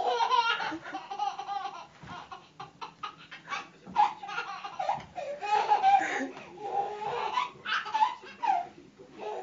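A baby laughing in repeated high-pitched bouts, loudest right at the start and again around the middle.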